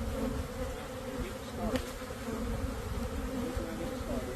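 A swarm of honeybees buzzing around their new hive in a steady, even hum. The bees are agitated, "so mad", having just been moved out of their swarm trap.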